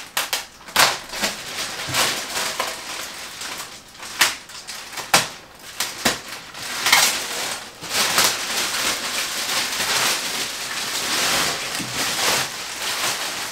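Plastic wrapping bag crinkling and tearing as it is cut open and pulled down off a resin 3D printer: a run of sharp crackles, turning into a steadier rustle over the last several seconds.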